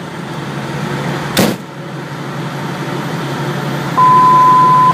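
A fire truck's engine idling steadily, with a short burst of static about a second and a half in. A loud, steady, single-pitch electronic beep comes in about four seconds in and lasts just under a second.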